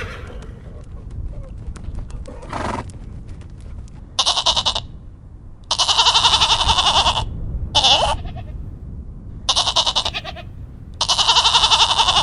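Farm animal bleating: five quavering calls of varying length, the longest about a second and a half, starting about four seconds in.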